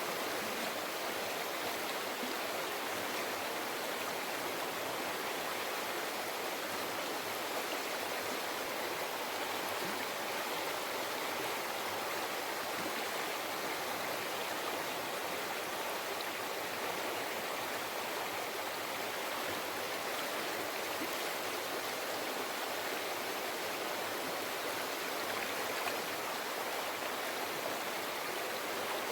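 Mountain river flowing over rocks: a steady babbling rush of water with no breaks.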